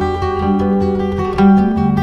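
Instrumental background music with plucked string notes over a steady low bass line, the notes changing about every half second.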